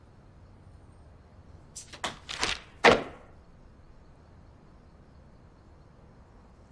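A quick run of four or five knocks and clatters lasting about a second, a little under two seconds in; the last one is the loudest.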